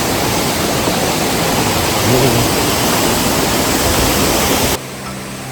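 Waterfall, a steady, even rush of falling water that cuts off suddenly near the end, giving way to quieter background music.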